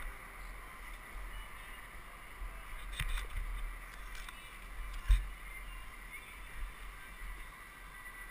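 Muffled low rumble with a few knocks and thumps, heard through a helmet-mounted action camera's sealed housing as the rider moves; the loudest, sharpest knock comes about five seconds in.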